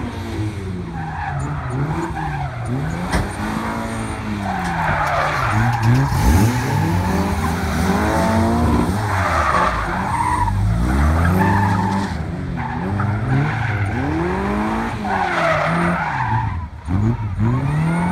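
Striker kit car's 1600cc Vauxhall four-cylinder engine revving up and falling back over and over as it is thrown through tight turns and spins. Its tyres squeal and skid several times.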